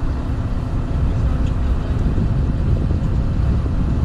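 Low, steady rumble of the tractor and recovery trucks' engines pulling a loaded semi trailer upright, mixed with gusty wind on the microphone.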